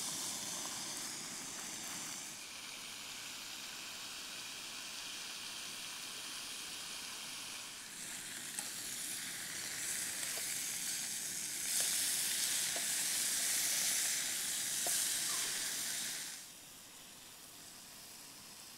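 Bacon rashers sizzling in olive oil in a non-stick aluminium frying pan on a gas camping stove. The sizzle grows louder in the middle and drops lower about three-quarters through, with a few light ticks.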